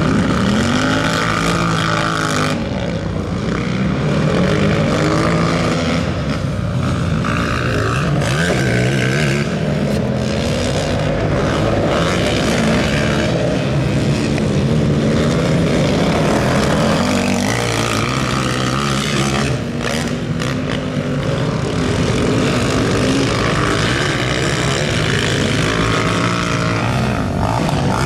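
Several racing quad bikes of the over-450 cc class, their engines revving hard with notes repeatedly rising and falling and overlapping as the field goes round the track.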